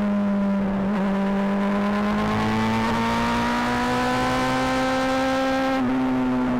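Honda CBR600RR inline-four engine and exhaust running under way, its pitch climbing slowly as it pulls. It dips briefly about a second in and again near the end, where the higher part of the sound falls away.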